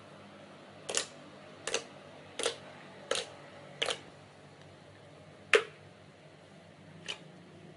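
Slime being squeezed and poked, giving seven short, sharp pops as air pockets burst, irregularly spaced; the loudest comes about five and a half seconds in.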